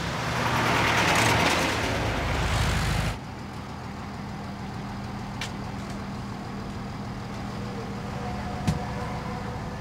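Bus engine running with a loud rushing hiss close by the bus. About three seconds in it cuts to the quieter, steady engine hum heard inside the bus cabin, with two sharp clicks later on.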